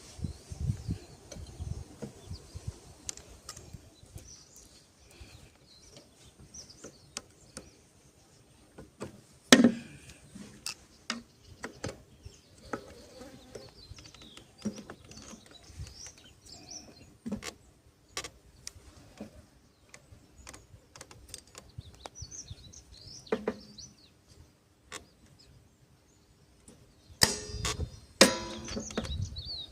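Scattered clicks and knocks of hand tools on metal while the lawnmower's carburetor bolts are undone, with a sharp clank about ten seconds in and a burst of rattling near the end. Birds chirp in the background.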